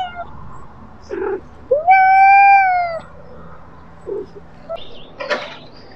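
Domestic cat giving one long meow, about a second long, that rises and then sags slightly in pitch about two seconds in. A couple of short, quieter sounds come before and after it.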